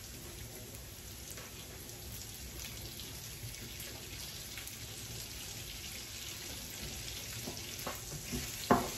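Butter sizzling faintly in a hot pot: a soft, steady hiss with small crackles. There is a sharp knock near the end.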